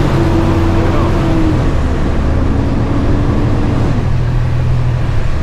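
Diesel delivery truck's engine heard from inside the cab as the truck pulls away: a steady low drone with a higher whine that steps down in pitch about two seconds in and fades out around four seconds in.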